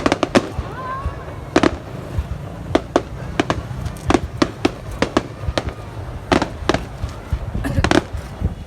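Fireworks display bursting: a steady run of sharp bangs at irregular intervals, some coming in quick clusters, over a low rumble.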